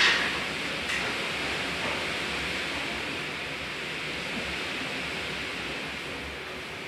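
Steady hiss of an old camcorder tape recording, with a brief knock right at the start and a faint click about a second in.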